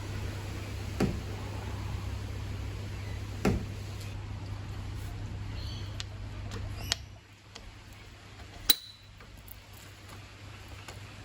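Metal parts and tools being handled during motorcycle fork work: two dull knocks, a few small clicks and one sharp ringing metallic clink, over a steady low hum that stops about seven seconds in.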